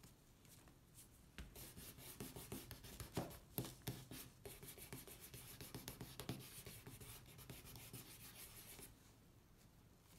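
Scratchy rubbing of a small paint-covered stamp pressed and worked over a square of cloth on a paper-covered table: quick irregular strokes with light knocks, starting about a second and a half in and stopping near the end.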